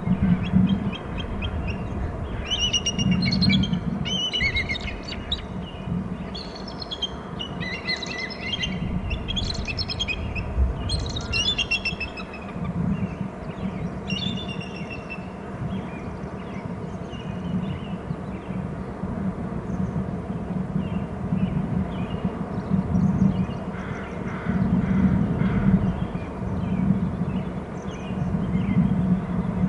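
Bald eagles giving alert calls: series of high, rapid chittering calls, mostly in the first half, with fainter calls later. Under them is a steady low rumble.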